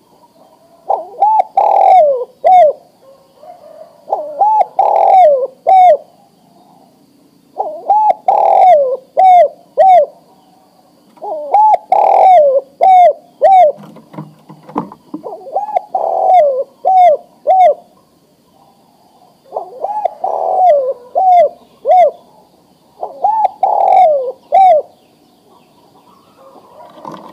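Male spotted dove (tekukur) giving its cooing breeding call, the call of a male ready to mate summoning a female. Seven phrases, each a quick run of several coos, repeat about every three to four seconds with short pauses between.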